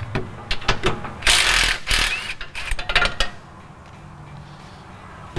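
Ratchet wrench clicking in short runs as the bolts holding a truck's rear bump stop are worked loose, with a louder, longer rasping burst about a second in. The clicking stops a little after three seconds, once the bump stop is off.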